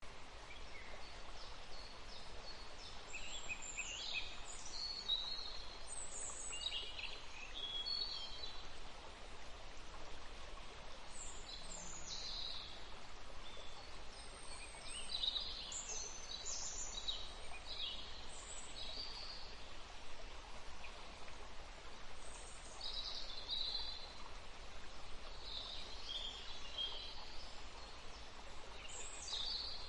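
Forest ambience: birds chirping in short, scattered phrases, with a few quiet stretches between them, over a steady hiss of background noise.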